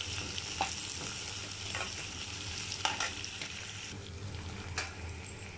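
Onion sizzling as it fries in hot oil in a tawa, with a steady hiss, and a spatula knocking and scraping against the pan a few times as it is stirred.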